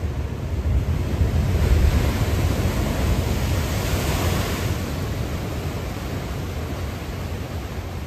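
Ocean surf: a big wave breaks and rushes up the shore. The surge builds over the first two seconds, its hiss crests about four seconds in and then fades, over a steady low rumble.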